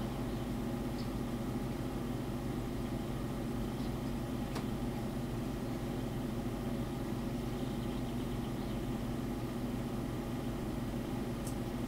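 Steady low hum of a running computer, even and unchanging, with a few faint clicks.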